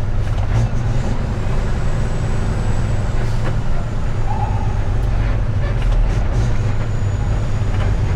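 Semi truck's diesel engine running steadily under load while pulling a 55,000-pound refrigerated trailer, heard from inside the cab. It is a steady low drone, with a few light clicks and rattles.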